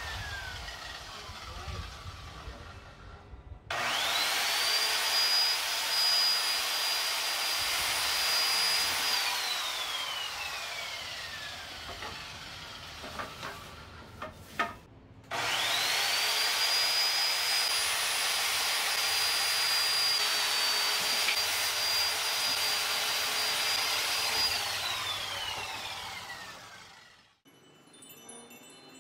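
Corded circular saw cutting wooden boards, run twice: each time it starts abruptly with a fast-rising whine, holds a steady high whine for about five seconds through the cut, then winds down with a slowly falling whine after the trigger is released. A previous run is still winding down at the start.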